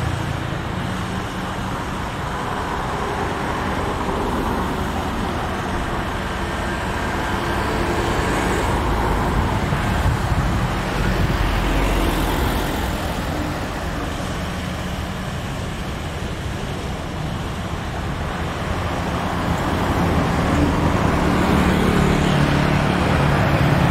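A steady engine roar, growing somewhat louder over the last few seconds.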